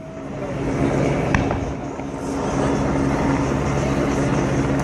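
Lull in a fireworks display: a steady low hum over outdoor background noise, with one faint pop from a firework about a second and a half in.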